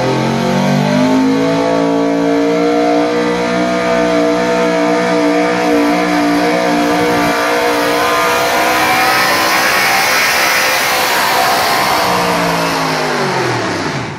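Pickup truck engine at full throttle pulling a weight-transfer sled down the track. It climbs in pitch in the first second and holds high and steady under load, then drops sharply near the end as the throttle comes off at the end of the pull.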